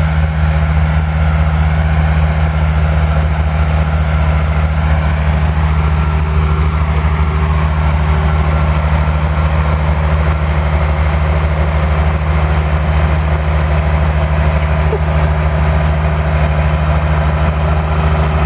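Potato crossover digger at work in the field: a steady, heavy diesel engine drone as the machine lifts four rows of potatoes.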